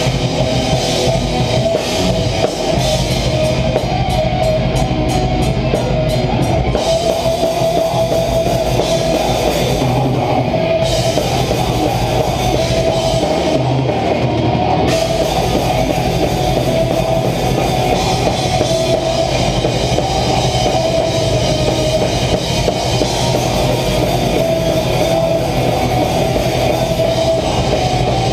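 Live heavy metal band playing: distorted electric guitars over a drum kit, with the cymbals and drums loud and close.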